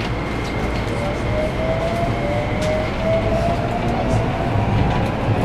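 Keikyu New 1000 series (1890 subseries) electric train running, heard from inside the car. The Toyo hybrid SiC VVVF inverter and traction motors give a whine that climbs steadily in pitch as the train accelerates, over the rumble of the wheels on the rails. A steady high tone fades out about three seconds in.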